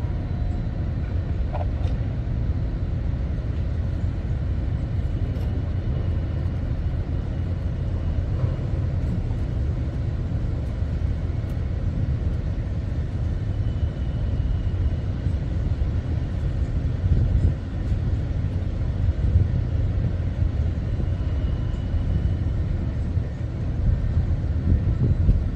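A steady low rumble with no distinct events, its loudness wavering slightly.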